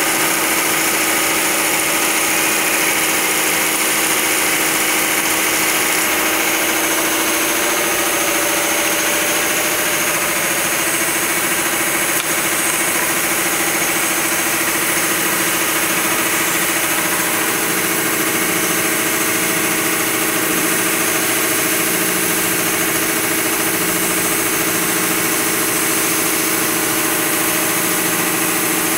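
Automatic curtain blind-stitching sewing table with a MAIER sewing head running at a constant speed, sewing a blind-stitch hem along curtain fabric; an even, unchanging machine noise with a steady tone in it.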